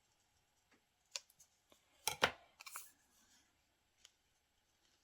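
Scissors cutting paper: a few short snips, the loudest about two seconds in.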